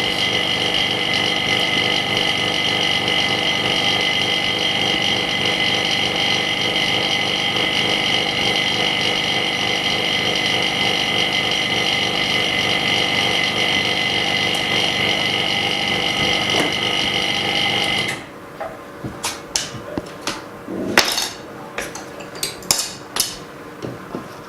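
A small machine's motor whining steadily, cutting off suddenly near the end, followed by a series of sharp clicks and scrapes of hand tools working on the phone's glass.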